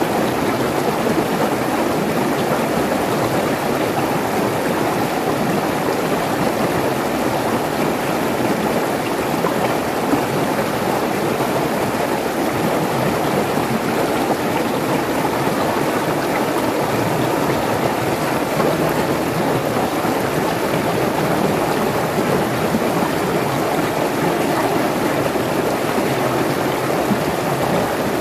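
Mountain stream rushing over rocks in small cascades, a steady, unbroken splashing of water.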